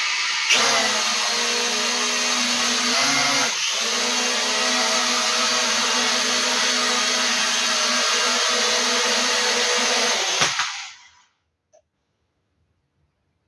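Quadcopter drone's propellers whirring with a steady, high-pitched buzz that wavers briefly in pitch about three and a half seconds in. The buzz fades out quickly at about ten and a half seconds.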